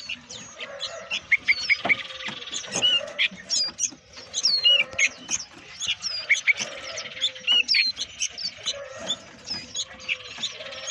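Many caged songbirds chirping and calling together: short, sharp, overlapping notes that run on without a break.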